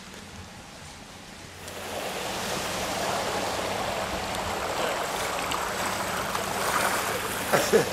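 Wind rushing on the microphone, a steady noise that comes up about two seconds in, with a few sharp rustles near the end.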